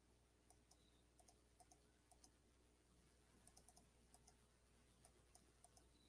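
Near silence broken by faint, irregular clicks of a computer mouse, some in quick pairs, over a low steady hum.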